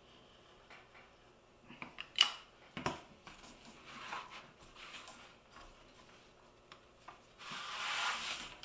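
Mat board and cutting tools handled on a work table during mat cutting: a few sharp clicks and knocks, then a brief scraping slide near the end.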